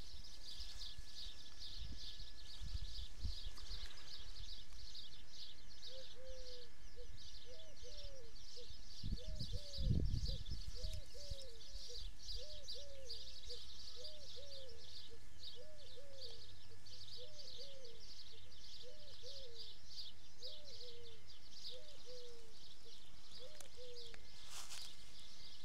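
Outdoor field ambience: a continuous fast, high-pitched chirring, with a bird repeating a short low call about once a second from about six seconds in until near the end. A brief low rumble comes near the middle.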